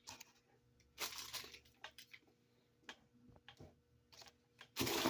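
Handling noise of small fidget toys and plastic packaging: scattered rustles and light clicks, then louder crinkling of plastic near the end.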